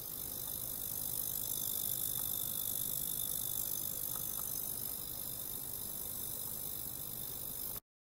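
Ultrasonic probe driven by a function generator: a steady high-pitched hiss with several thin, unchanging whines in it, cutting off abruptly near the end.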